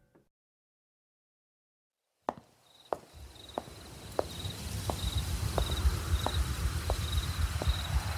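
Silence for about two seconds, then a single click, then footsteps at a steady walking pace, about two a second. Crickets chirp in short repeating pulses behind them, over a low rumble that fades in.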